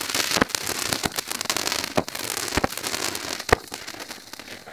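Small Nico Europe ground firework battery spraying a fountain of sparks with a steady hiss and crackle. About five sharp cracks stand out, and it dies down near the end.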